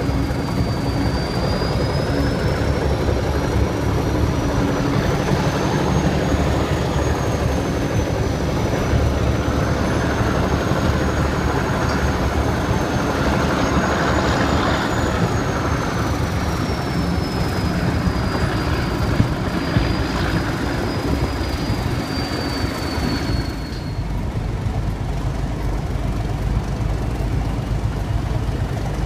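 Heritage diesel locomotives hauling a train, their engines rumbling steadily as heard from an open side window, with a high whine that wavers up and down in pitch and stops about 24 seconds in.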